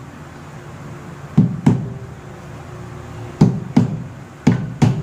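Hammer driving nails into a laminated wood-grain cabinet panel during assembly: six sharp knocks, falling in pairs about a third of a second apart.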